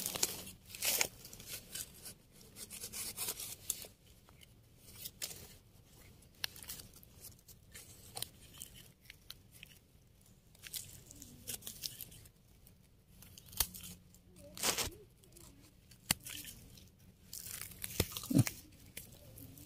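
A knife scraping and crunching through dry soil as a bolete mushroom is dug out and cleaned, in short, irregular scrapes and rustles with quiet gaps between.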